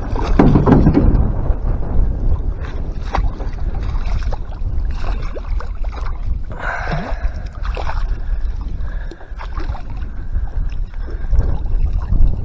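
Wind buffeting the microphone in a steady low rumble, with water lapping and scattered knocks and clatters.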